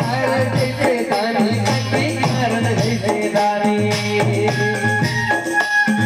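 Chhattisgarhi devotional bhajan played live: an electronic keyboard melody over a steady hand-drum rhythm with jingling percussion. The melody bends in pitch at first, then settles into held notes from about halfway through.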